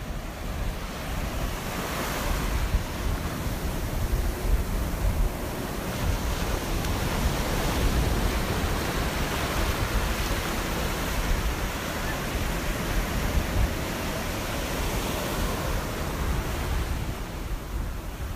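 Ocean surf: a steady rushing wash of breaking waves with a deep low rumble.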